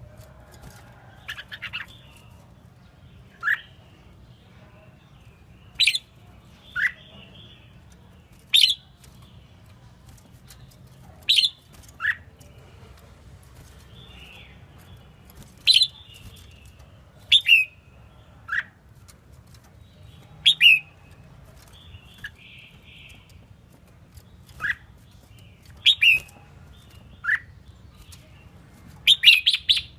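Female red-whiskered bulbul calling: short, sharp notes, each falling quickly in pitch, repeated every one to three seconds, sometimes in quick pairs. A faint steady low hum runs underneath.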